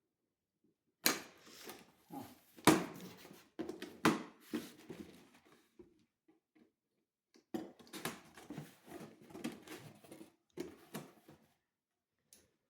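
Cardboard box and packaging being handled and opened: scraping, rustling and sharp knocks in two bursts of a few seconds each, with a short quiet gap between.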